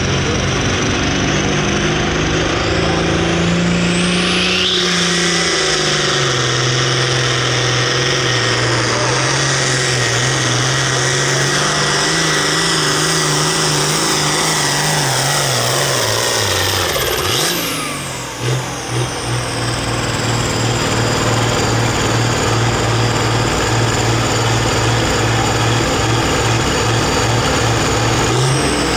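John Deere 6030 pulling tractor's turbocharged diesel engine at full throttle under load, with a high steady whine over it. About 17 seconds in the engine and the whine wind down, and the engine then runs on steadily at a lower speed.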